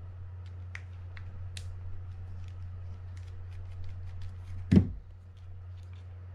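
Small clicks and taps of metal reel parts and hand tools as a Shimano Baitrunner 8000D spinning reel is taken apart, with one louder knock about three-quarters of the way through, over a steady low hum.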